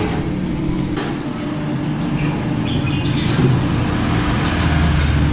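Steady low mechanical rumble and hum, the low rumble swelling a little near the end, with one sharp click about a second in.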